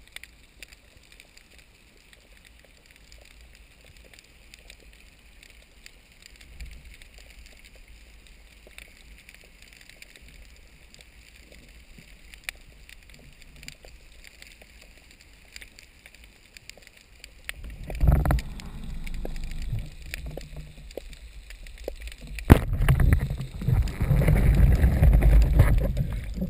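Underwater water hiss with small scattered clicks, then sudden loud rushing and churning water about two-thirds of the way through. A single sharp crack comes just before the loudest churning, which fits a speargun being fired, with the speared fish and the line thrashing in the water after it.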